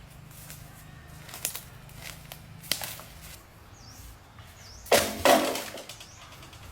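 A few short, sharp knocks or impacts, the loudest a pair close together about five seconds in.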